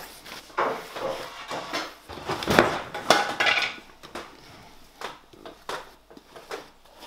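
Paska baking tins clattering and knocking as they are handled and set down, a run of irregular knocks with the loudest clatter about two and a half seconds in.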